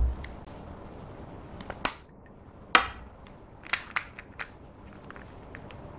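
A plastic lipstick tube and its cap being handled: a dull knock at the start, then several sharp plastic clicks and snaps, the loudest about three seconds in and a quick cluster about a second later.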